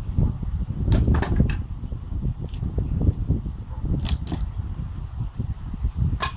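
Demolition of a concrete block wall: scattered sharp knocks and clacks, a few close together about a second in and again around four seconds, over a steady low rumble.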